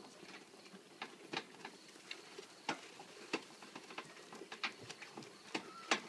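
Scattered light clicks and taps, irregular and a second or so apart.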